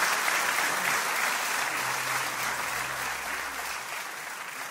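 Audience applauding, the clapping steadily fading away.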